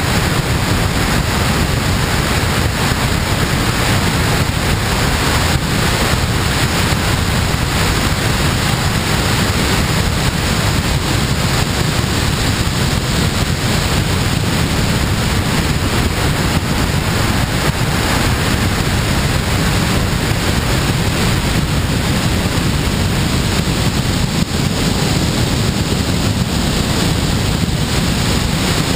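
Steady rush of airflow over a wing-mounted camera on a glider in flight, a deep, even rumble of wind buffeting the microphone.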